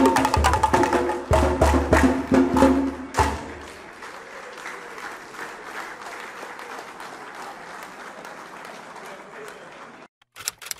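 Drum-led percussion music with strong, steady beats stops about three seconds in. An audience then applauds more quietly for several seconds, and the sound cuts off briefly near the end.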